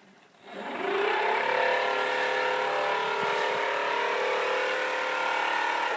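Small battery-powered electric motor spinning a toy airplane's propeller: it spins up quickly with a rising whine, then runs steadily at high speed until it winds down near the end.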